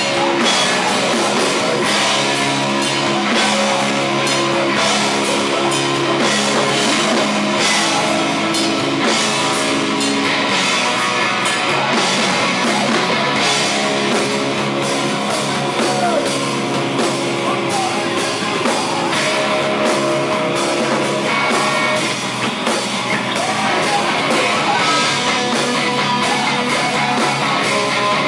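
Live post-hardcore band playing a song loudly, with distorted electric guitars and a pounding drum kit.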